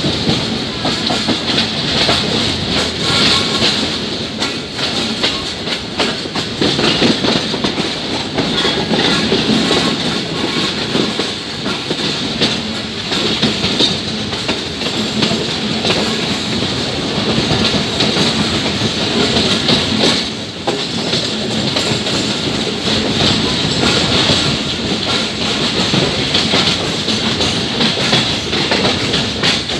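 A train running on the rails, its wheels making steady noise with rapid clicking over the rail joints.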